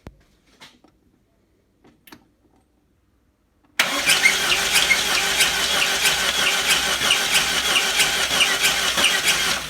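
VAZ 2101–07 (classic Lada) inline-four engine coming on abruptly about four seconds in and running with a high, rhythmic squeak repeating several times a second, then dying away at the end. The squeak appeared after the oil pressure dropped, and the owner suspects the crankshaft.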